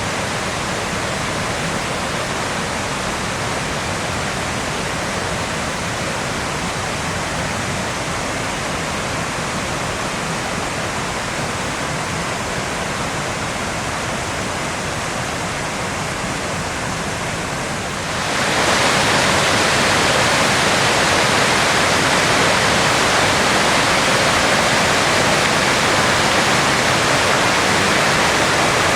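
Tall waterfall, its water falling in a steady rushing noise. A little past halfway it turns suddenly louder and brighter, and holds there.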